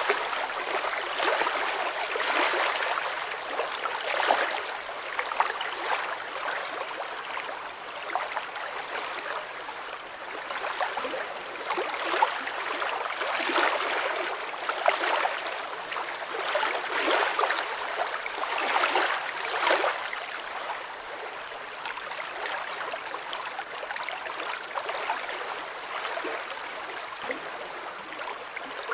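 Gently flowing water with a steady babble of small gurgles and splashes.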